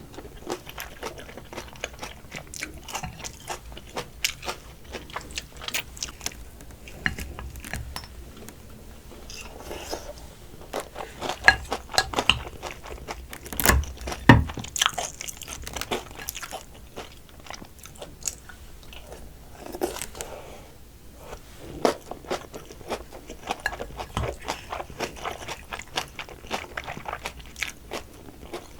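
Close-up eating sounds of soy-sauce-marinated raw crab: shells crunching and cracking under the teeth, with chewing and wet sucking, the loudest cracks about halfway through.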